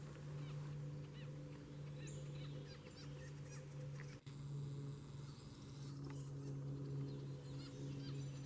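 Faint, scattered chirps from small birds over a steady low hum. There is a brief break about four seconds in.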